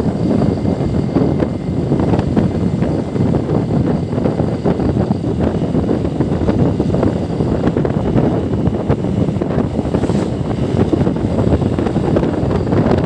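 Wind buffeting the microphone of a moving motorcycle, a steady rushing noise, with the motorcycle's engine running beneath it.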